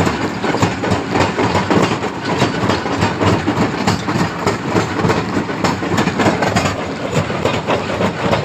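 Stone crusher running, a steady heavy machine din with dense, irregular clattering and knocking of rock.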